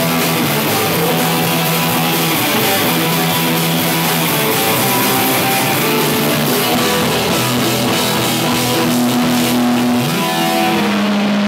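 Live rock band playing loud, with electric guitars and keyboard. Near the end a low note slides up and is held, droning on steadily.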